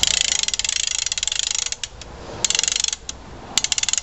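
Rapid ratchet clicking from the wind-up crank starter of a 1966 Briggs & Stratton 3.5 hp mower engine, wound by hand to load its spring: one long run, then two short bursts. The engine does not fire: it is proving a pig to start.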